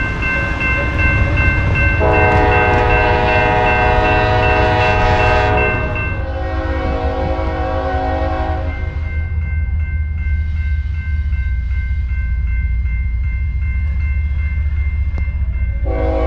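Norfolk Southern freight locomotive horn blowing a long chord about two seconds in. The chord shifts lower about six seconds in and fades out around nine seconds. It plays over the steady low rumble of the passing freight train, and the horn sounds again near the end.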